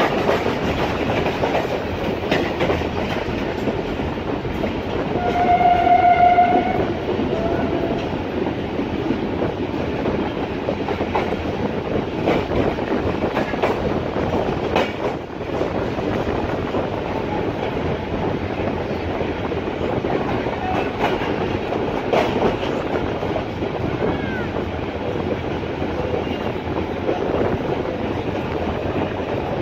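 Passenger train running at speed, heard from an open coach door: a steady rumble of wheels on the rails with occasional clacks over rail joints. About five seconds in, the train's horn sounds one blast of about a second and a half, then a short fainter toot.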